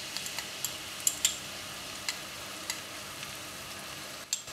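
Chopped garlic and shallots with spices frying in hot oil in a wok: a steady sizzle with scattered sharp pops of spitting oil.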